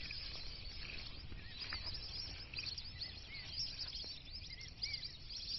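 Birds chirping, many short repeated notes, over a steady low rumble of outdoor noise.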